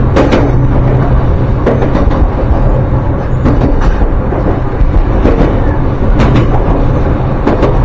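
Electric commuter train running along the line: a steady rumble with a low hum, broken by occasional knocks and clacks from the track.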